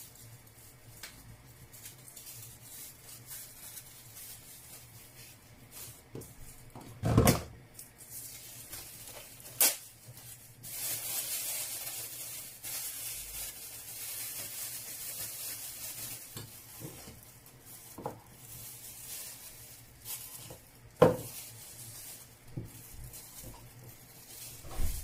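Kitchen pot and utensil handling: a few sharp knocks, the loudest about seven and twenty-one seconds in, and a high hiss that starts about ten seconds in and carries on more quietly.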